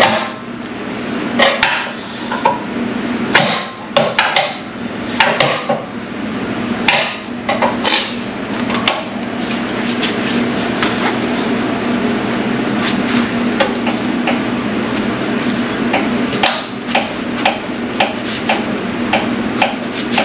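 Hand tools striking and knocking on metal while working at a rusted, seized idler pulley bolt: irregular sharp clanks, then from about two-thirds of the way in a steady run of lighter taps about twice a second. A steady low hum runs underneath.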